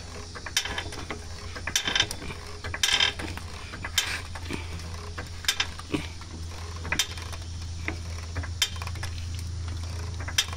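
Pittsburgh 3-ton low-profile rapid-pump floor jack being pumped to raise a car, giving irregular sharp metallic clicks and clanks every second or so over a steady low hum.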